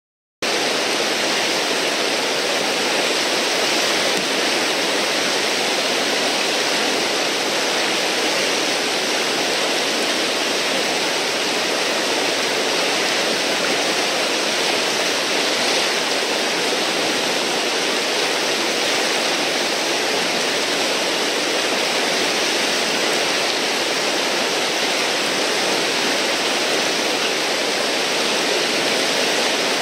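River whitewater rushing steadily through a large standing wave in the rapids, starting about half a second in.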